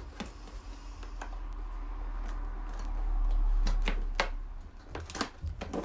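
Cardboard box being handled and opened: a few sharp clicks and taps of the lid and flaps in the second half, over a low rumble that swells in the middle.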